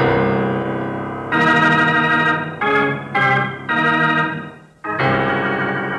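Radio-drama music bridge closing a scene: sustained organ chords that change every second or so, with a brief dip in level just before five seconds in.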